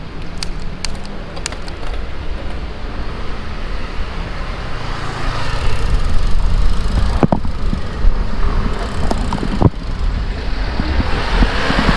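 Wind noise on the microphone and road traffic while riding a road bike, with a few sharp clicks near the start and two louder knocks later on.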